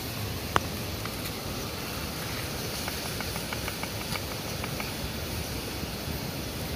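Eggs frying in a pan over a wood fire: a steady sizzle, with one sharp click about half a second in and scattered small ticks a few seconds in.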